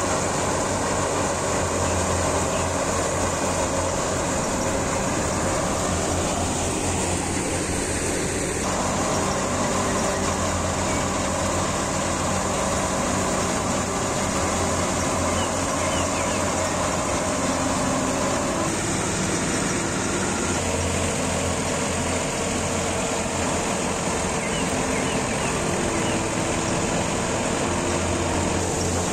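Wheat thresher running at working speed, driven off the PTO of a Massey Ferguson 240 tractor whose diesel engine runs steadily. Wheat sheaves are being fed through the drum. The result is a loud, continuous mechanical drone with a low hum under it.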